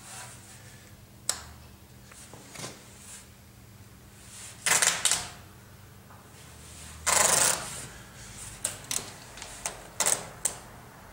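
Handling noises: scattered sharp clicks and taps, with two louder rustling bursts about five and seven seconds in, followed by a run of quick clicks.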